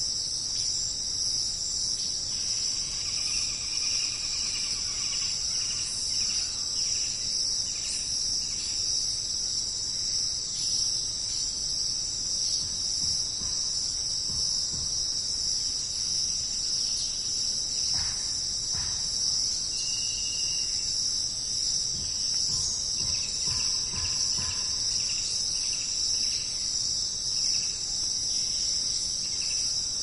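Steady, dense chorus of insects, a continuous high shrill that never lets up, with a few faint short chirps scattered through it.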